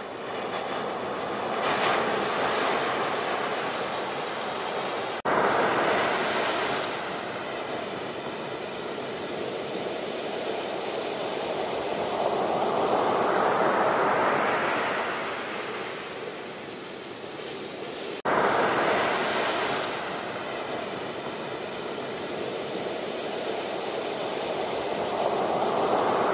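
Rushing, churning water: a steady roar that slowly swells and eases, jumping suddenly louder about five seconds in and again about eighteen seconds in where the audio is cut.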